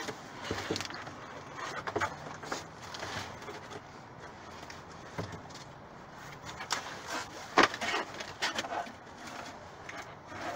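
Cardboard boxes and plastic packaging rustling, crinkling and knocking as boxes are shifted and feet move through discarded groceries in a dumpster. Irregular crackles run throughout, with the sharpest crack about three-quarters of the way through.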